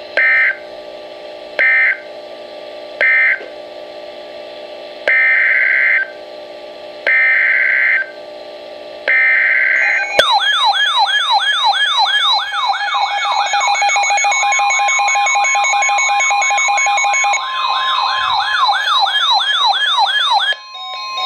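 Emergency Alert System data bursts: three short end-of-message bursts, then three longer, roughly one-second header bursts for the next alert. About ten seconds in, a loud warbling, siren-like alert tone starts, with a steady tone joining it a few seconds later, and cuts off shortly before the end.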